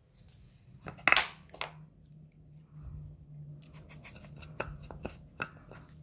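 Dog nosing and pushing the wooden cylinders of an AniOne wooden treat-puzzle board: two short scraping rushes about a second in, then a run of light wooden clicks and knocks as the pieces are shoved aside to get at the hidden treats.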